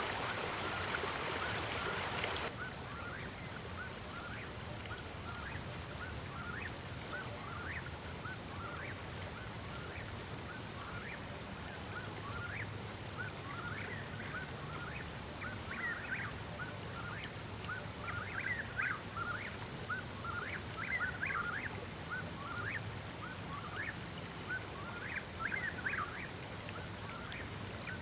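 Rushing creek water for the first couple of seconds, then it cuts to a chorus of many short rising animal calls that grow denser in the second half. Under the calls runs a steady high-pitched tone with brief gaps.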